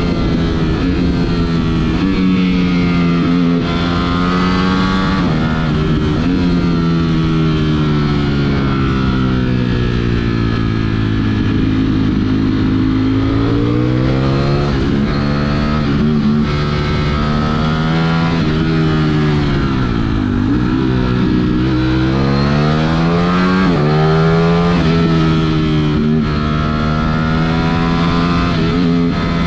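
Ducati Streetfighter V4S's V4 engine running under way, its pitch sinking slowly and climbing again several times as the throttle opens and closes, with a sharp drop and recovery about twenty seconds in.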